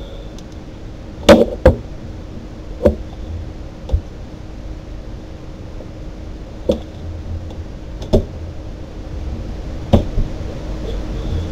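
About eight sharp knocks or taps at irregular intervals, the loudest two close together early on, over a steady low hum.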